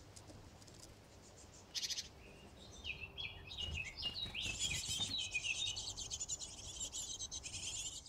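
Hungry tit nestlings begging: a short burst of high cheeping about two seconds in, then rapid, dense, high-pitched cheeping from about three seconds in that keeps on while a parent comes to the nest box to feed them.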